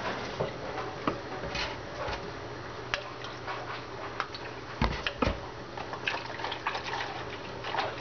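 Kitchen tap running into a stainless steel sink for about the first second, then clicks and clatter of a plastic food container and its lid being handled, with two dull knocks about halfway through.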